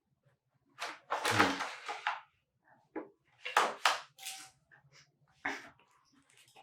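Plastic latch clips of an ASUS TUF laptop's bottom cover clicking and cracking as the cover is pried loose with a plastic card: a series of short sharp snaps spread over several seconds.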